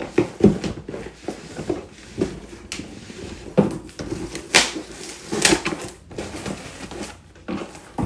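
Cardboard box and its packing being handled and opened: irregular knocks, scrapes and rustles, with a few sharper bumps spread through.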